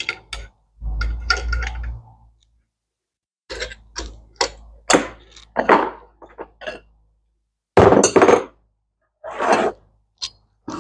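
Steel bearing-puller parts clinking and clunking as they are unscrewed, lifted off a differential and set down on a workbench: a run of separate metal knocks, the loudest about eight seconds in. A short low buzz sounds about a second in.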